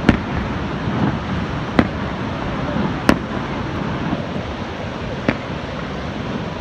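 Aerial fireworks shells bursting: about five sharp bangs at uneven intervals, over a steady rushing noise.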